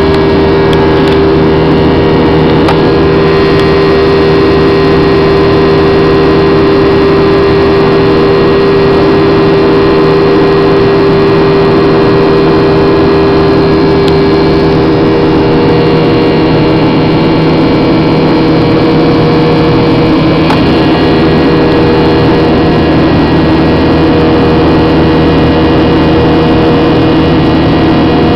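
Airliner cabin noise: the engines and rushing air drone loudly and steadily during the climb after takeoff, with a strong steady hum among several fainter steady tones.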